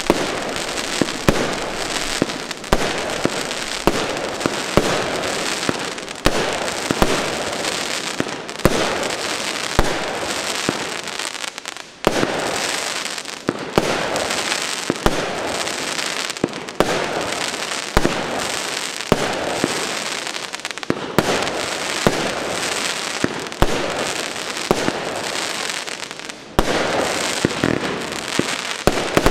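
Fireworks compound cake, Feuerwerkshop's 182-shot 'Mutterschiff', firing a rapid string of shots: sharp launch and burst reports about one to two a second over continuous crackling from the stars. Two brief lulls come about twelve seconds in and near the end.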